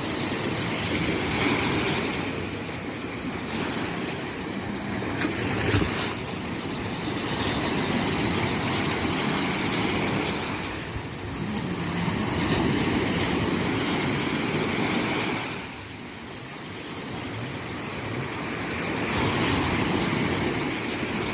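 Sea waves breaking and washing up, the surf swelling and easing every few seconds, with a short sharp knock about six seconds in.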